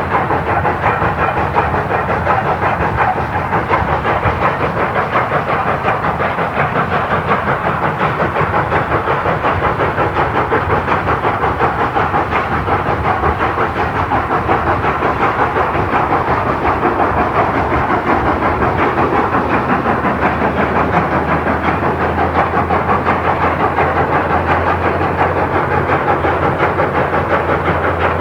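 South Australian Railways 520 class 4-8-4 steam locomotive working under steam, its exhaust beating in a fast, even rhythm with a hiss of steam. A steady low hum rises underneath in the second half.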